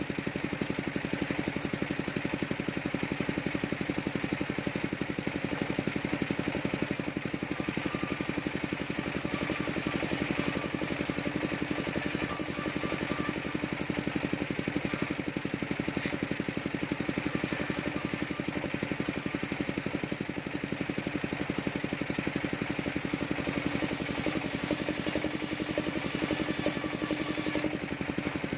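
Table circular saw running steadily while ripping planks of waru wood, the blade's cutting noise over the even, fast beat of the engine that drives it.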